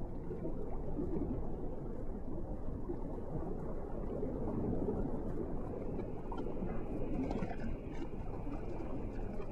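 Steady low rushing noise of an underwater recording, with a few faint clicks in the second half.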